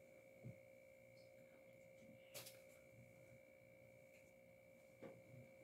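Near silence: a faint steady two-pitch electronic tone, with three brief soft handling noises of fleece being moved.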